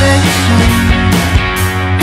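Background music with a steady beat, a rock track laid over the footage.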